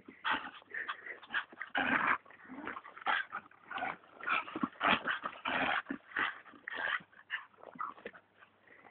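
A dog tugging and chewing at a large branch, making a rapid string of short, irregular play whines and growls.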